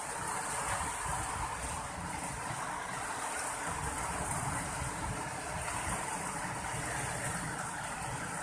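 Steady downpour of rain mixed with small hail falling on a wet, puddled concrete yard, an even hiss with no let-up.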